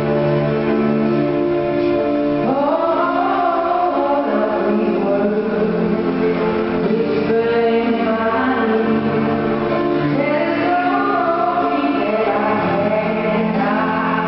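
Ice dance free dance program music with choral singing. Held chords give way to wavering voices that come in about two and a half seconds in.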